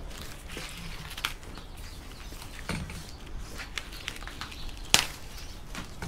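Handling noise of a thick split cable: its orange insulation and white paper filler strips rustling, with scattered light clicks and one sharp click about five seconds in.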